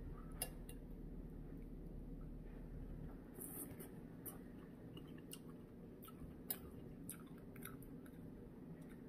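A person eating soup: quiet chewing with scattered small clicks, over a low steady hum.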